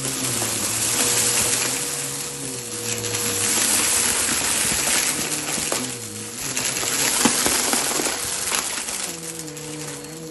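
Vacuum cleaner running over a rug. Its rushing airflow swells and fades with each pass, over a steady motor whine, with a few sharp clicks of debris being sucked up.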